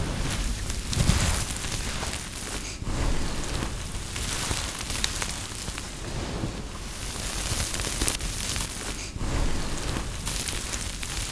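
Brittle, microwave-puffed soap being crushed and broken apart by hand: a continuous gentle crunching and crackling dotted with small sharp snaps, swelling and easing every second or two.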